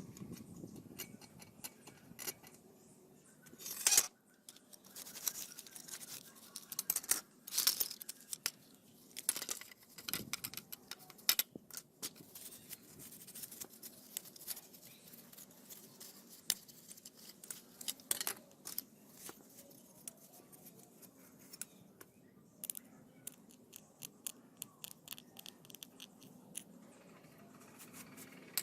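Irregular clicks, taps and short scrapes of small parts being handled during hand work on a model car, with sharper clicks about four and seven seconds in.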